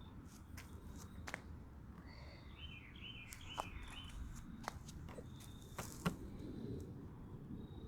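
Faint outdoor background with a bird singing a short warbling phrase about two seconds in, and scattered light clicks and taps.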